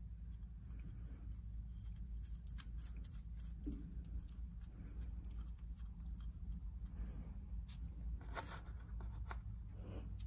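Faint light clicks and scrapes of small metal nuts being spun by hand onto the cylinder head studs of a two-stroke bicycle engine, a little louder about eight seconds in.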